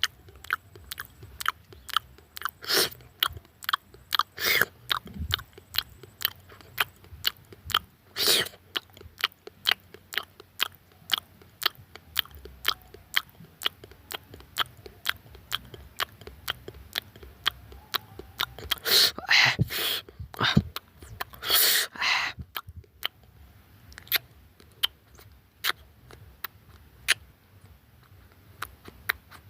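A person chewing and biting into barbecued goat meat close to the microphone: a steady run of sharp, wet mouth clicks about two to three a second. A few louder crunchy bites come about twenty seconds in, and the chewing grows sparser near the end.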